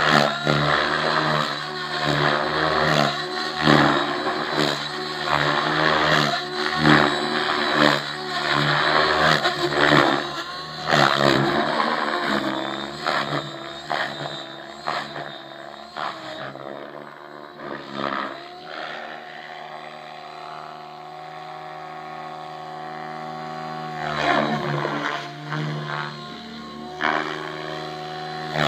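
Electric JR Propo Forza 700 RC helicopter flying: a steady rotor and motor whine with sharp surges of blade chop through the first half. It grows quieter and smoother in the middle, with the pitch sliding down and back up, then louder again near the end.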